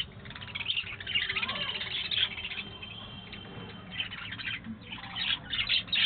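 A flock of budgerigars chattering and warbling: many overlapping quick chirps, busiest about a second in and again near the end.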